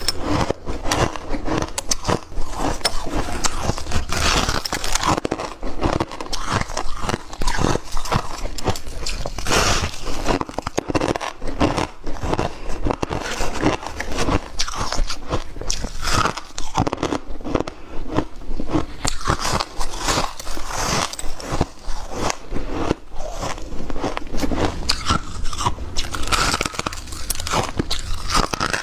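Close-miked biting and chewing of dry, flaky ice: a continuous run of rapid crunches and crackles as the ice is bitten and crushed between the teeth.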